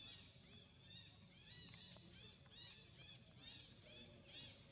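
Faint chorus of birds chirping: many short, high, arching chirps overlapping one another in quick succession, over a low steady background rumble.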